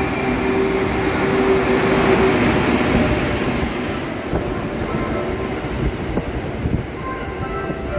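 Electric locomotive and the Cassiopeia's double-deck sleeper coaches rolling past along the platform as the train pulls into the station. A steady hum from the passing locomotive is loudest in the first few seconds, then the coaches run by with a rumble and a few clacks of wheels over rail joints.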